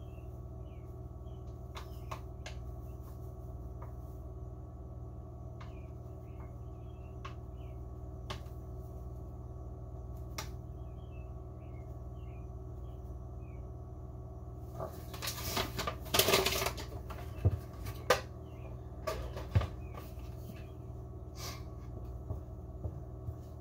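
Hand-mixing pizza dough: flour poured from a paper bag into a mixing bowl, then a wooden spoon stirring, with a burst of scraping and sharp knocks against the bowl a little past halfway. A steady low hum runs underneath.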